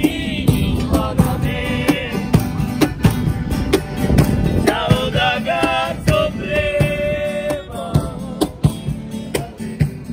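Street band playing live: strummed acoustic guitars and accordion over a cajón beat, with a man singing.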